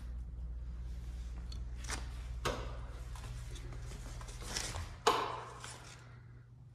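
A wall switch is flicked with one sharp click about five seconds in, turning on a ceiling fan instead of the room light. Before it comes a steady low hum and a couple of light taps.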